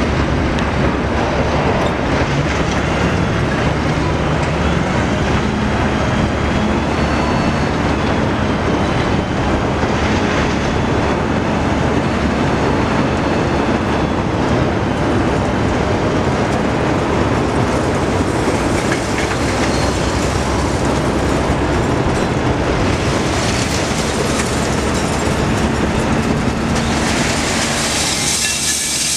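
Truck engine running steadily to drive the Ace lugger hoist's hydraulics as it lifts and tips a loaded container, a rumbling hum with a faint steady tone. Near the end, scrap metal starts sliding out of the tipped container with a loud metallic clatter and hiss.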